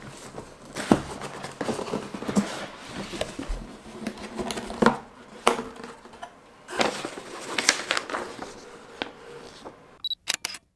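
Cardboard box being handled and opened: the lid sliding and scraping off, with taps, knocks and paper rustling.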